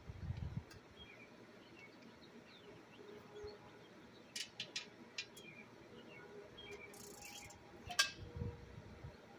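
Scattered sharp clicks and knocks from hand tools working on an air compressor being taken apart. There is a quick run of clicks about four and a half seconds in, a brief high hiss around seven seconds, and the loudest, a single sharp clack, about eight seconds in, followed by a few low thuds. Faint bird chirps sound throughout.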